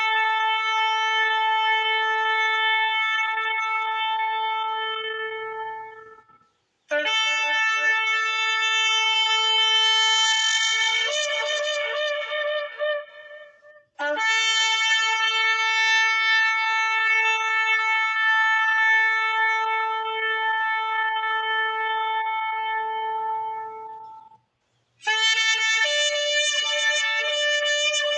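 A shofar blown in long held blasts: one already sounding that fades out about six seconds in, a second that jumps up to a higher note partway through, a long steady third one, and a fourth that starts near the end, each separated by a short pause for breath.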